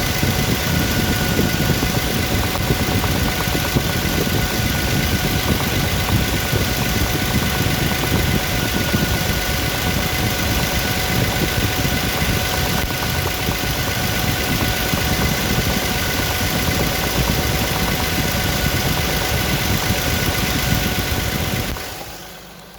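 Car engine idling steadily with a knock, over a steady whine. The sound fades out near the end.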